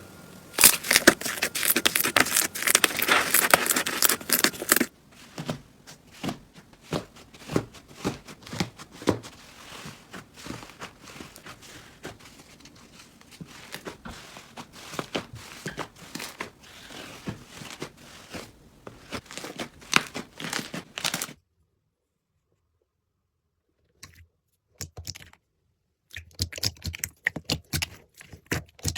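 Slime being squeezed, stretched and poked by hand, giving rapid crackling and popping clicks. The crackling is densest and loudest for the first few seconds, thins to scattered clicks, stops for about three seconds near the end, then starts again.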